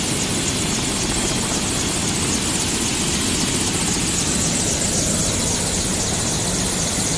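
Helicopter running close by: a steady, loud rush of rotor and engine noise with a bright high hiss, unbroken throughout.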